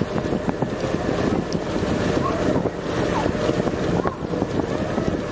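Tour boat's motor running steadily as the boat cruises, with wind buffeting the microphone.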